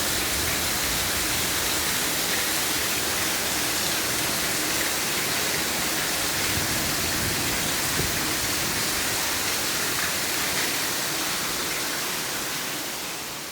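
Heavy rain of a tropical thunderstorm falling in a steady, dense hiss, beginning to fade out near the end.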